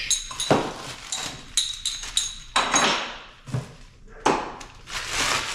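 Clear plastic accessory bag crinkling and rustling as it is handled, in a series of sharp, noisy crinkles.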